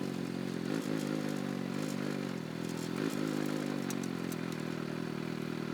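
Motorcycle engine and exhaust running at a fairly steady speed, with a couple of brief dips in pitch, picked up by a microphone at the bike's tail along with road and wind noise.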